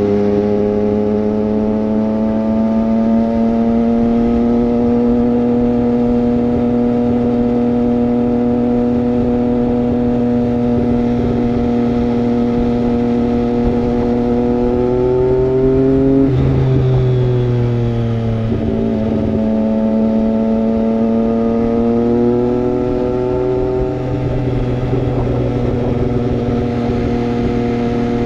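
Triumph Street Triple 765 RS's inline three-cylinder engine through a Racefit Growler full exhaust, cruising at steady revs. About two-thirds of the way through the revs drop and then climb back, with another change in pitch a few seconds later.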